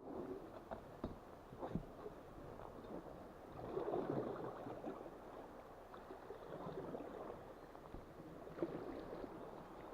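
Paddles dipping and water gurgling and splashing around an inflatable canoe on a river, with a few light knocks and a swell of splashing about four seconds in.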